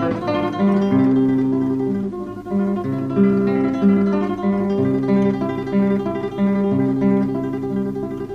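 Music: an acoustic guitar playing a melody of plucked notes.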